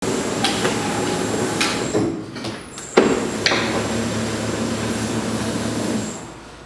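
A steady machine hum with several sharp knocks and clatters, the loudest about three seconds in. The hum dips briefly around two seconds and fades out near the end.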